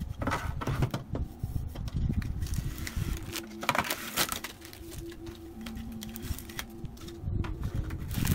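Handling noise from a thin wooden strip being picked up, turned over and laid back down on a wooden tabletop: scattered taps, knocks and scrapes, with rustling from its printed label.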